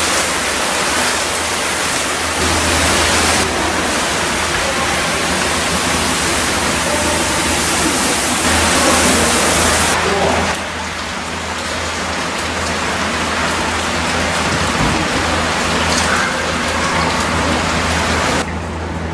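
Artificial rain shower in an indoor tropical exhibit: a steady hiss of water pouring down onto foliage and ground, over a low steady hum. The hiss drops noticeably quieter about ten seconds in.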